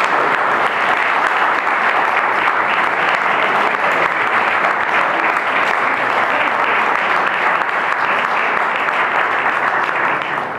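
Audience applauding steadily, the clapping stopping near the end.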